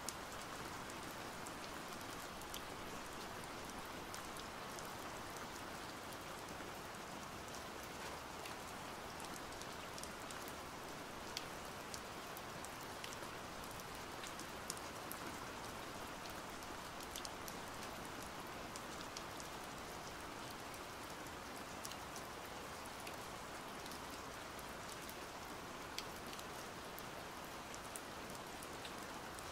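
Steady rain falling, with many small sharp drops heard through it.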